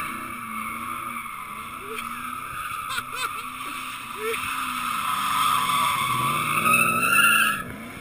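Rear tyres of a supercharged 5.4-litre V8 Ford F-150 Harley-Davidson pickup squealing continuously as it drifts in circles, with the engine revving underneath. The squeal wavers, grows loudest near the end and then cuts off suddenly.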